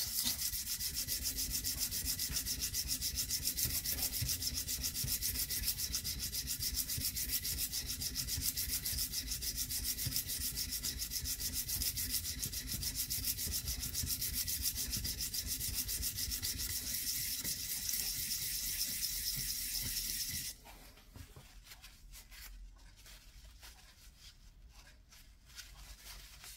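Steel Dnepr 650 engine tappet being lapped by hand on sandpaper laid on a flat steel plate to resurface its worn face: a steady, fast, scratchy rubbing. It stops suddenly about twenty seconds in, leaving quieter handling noises.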